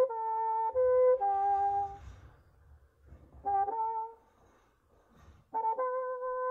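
Bassoon played solo: a slow phrase of held notes, breaking off about two seconds in, then a short group of notes, a pause, and a long held note starting near the end.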